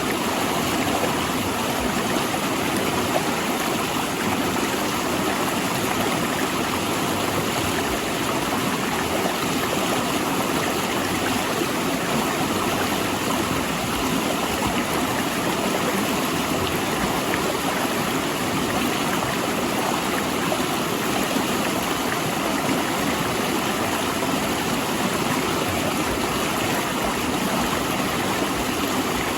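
A river rushing steadily between large rocks, with an even, unbroken sound of flowing water.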